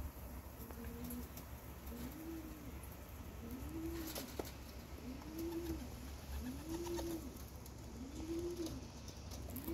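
Racing pigeon cooing: a low coo that rises and falls, repeated about six times at a steady pace.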